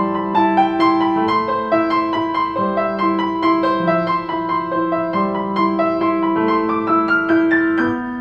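Instrumental background music of short notes played at an even pace, climbing in pitch near the end.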